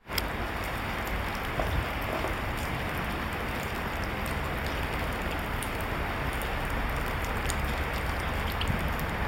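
Steady, even hiss of background noise, with a couple of faint taps about a second and a half in.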